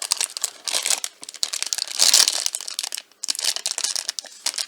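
Blind box packaging being torn open and crinkled by hand: a dense crackle of a wrapper, loudest about two seconds in, pausing briefly a little after three seconds.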